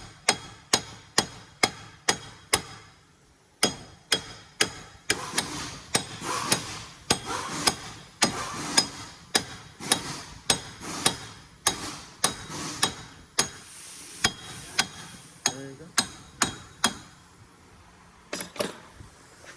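Hammer blows on a Dodge Grand Caravan front wheel hub bearing assembly, knocking the old hub loose after its mounting bolts are out: a steady series of sharp metal strikes, about two a second, each with a short metallic ring. There is a brief pause about three seconds in, and the blows thin out near the end.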